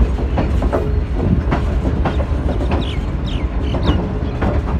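Pakistan Railways passenger train with a CRRC Tangshan coach rolling along the loop line: a steady rumble of wheels on track, with clicks of wheels over rail joints and points and a few short high squeals near the middle.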